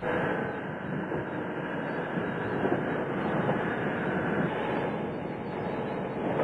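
Steady rushing and rumbling of an inflatable boat under way in rough sea: its outboard motor, wind on the hull and slapping spray blending into one even noise.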